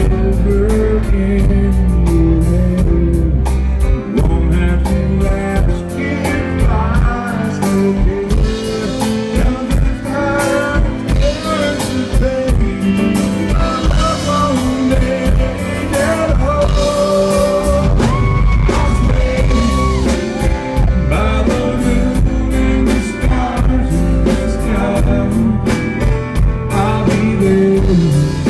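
Live country band playing an instrumental break: a guitar lead with bending, held notes over strummed acoustic guitar, bass and drums.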